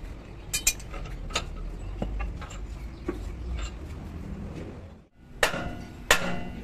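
Light metal clinks and knocks as steering knuckle parts are handled, then, about five seconds in, two loud hammer blows on the truck's steel spindle and brake drum assembly, each ringing briefly.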